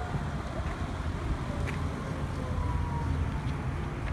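Jet airliner on approach to land passing overhead: a steady low rumble with a faint whine that slowly falls in pitch.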